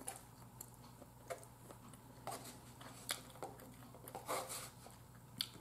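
Faint, scattered clicks and soft scrapes of a metal fork against a plate as food is cut and picked up, with soft eating sounds in between.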